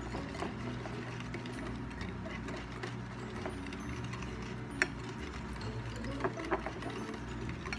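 Metal balloon whisk beating a thick instant-coffee, sugar and hot-water mixture by hand on a ceramic plate: fast, steady, rhythmic scraping and ticking of the wires against the plate. There are a few sharper clinks, one about five seconds in and two more about a second and a half later.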